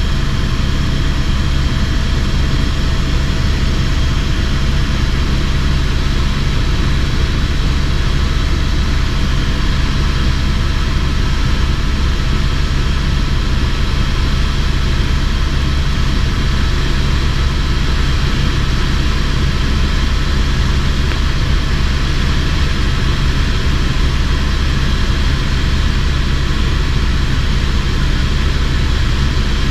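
Helicopter engine and rotor drone, steady and loud throughout, heard from aboard the helicopter in flight.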